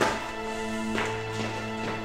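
Background music holding a sustained low chord, with a sharp hit at the start and a few lighter knocks about a second in and near the end.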